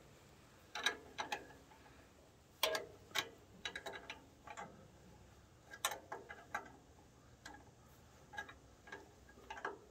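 Steel wrench clicking and clinking on the bandsaw mill's wheel-adjusting bolts as they are loosened to re-track the blade. The sharp metal clicks come irregularly, some singly and some in quick clusters.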